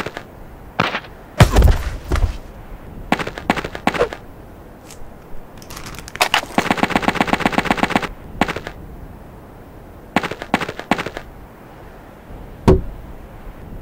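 Gunfire sound effects: scattered single shots, a heavy hit about a second and a half in, and a rapid burst of automatic fire about six and a half seconds in, lasting a second and a half. One more sharp shot comes near the end.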